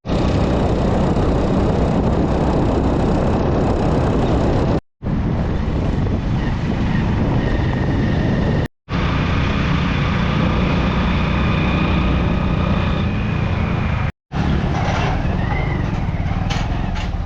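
Road traffic: vehicle engines and tyre noise, loud and steady, broken three times by sudden short cuts.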